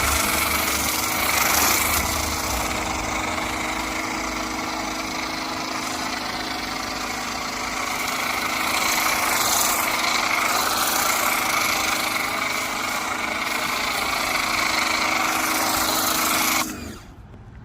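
Pressure washer running and spraying foam through a foam cannon: a steady motor hum under a loud hiss of spray, which cuts off suddenly near the end.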